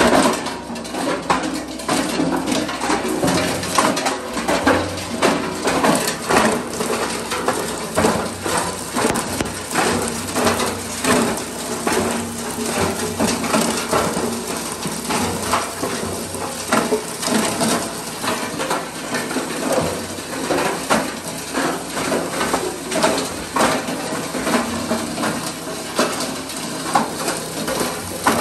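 Cumberland 12" x 16" plastic granulator with a 7.5 HP motor, running and grinding pieces of plastic sheet. Its steady machine hum sits under a continuous, irregular clatter of cracking and knocking as the plastic is chopped.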